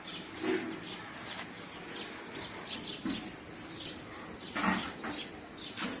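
House sparrows chirping: a run of short, repeated chirps, with two louder calls about half a second in and near the end.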